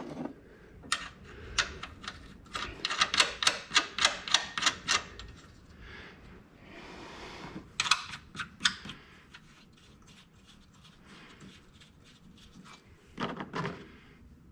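Quick runs of sharp metallic clicking as the mounting hardware of a car's front strut bar is fitted and run down onto the strut tower studs, with a couple of heavier knocks near the end.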